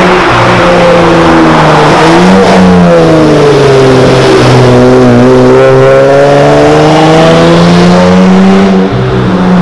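Dodge Charger SE AWD's 3.6-litre V6, with a Flowmaster Super 44 muffler and its resonators cut off, driving past with a loud exhaust note. The pitch sinks in the middle, then climbs again as it accelerates away.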